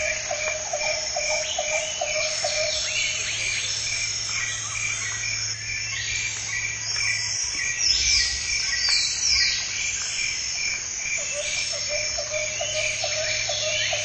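Jungle ambience: insects trill steadily and high, while a frog calls in rapid repeated croaks at the start and again from about three-quarters of the way through. A few falling high calls come in around the middle.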